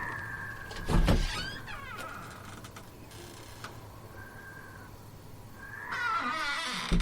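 Sound effect of a creaking door hinge, a long wavering creak, with a heavy thud about a second in and another creak rising near the end.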